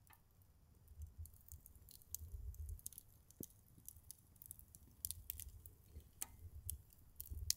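Firewood burning in a small Uniflame wood grill, crackling with irregular faint pops and ticks over a low rumble.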